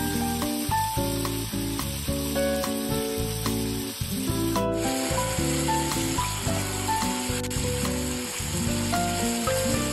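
Marinated pork chops quick-frying in hot oil, sizzling steadily, with background music playing over it.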